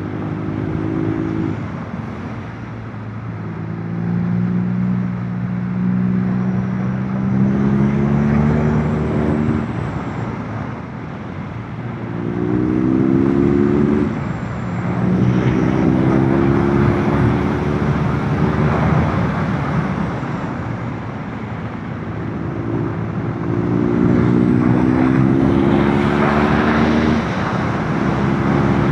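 Motorcycle engine pulling through a run of curves, its pitch climbing and dropping back again about five times, over a steady rush of wind noise.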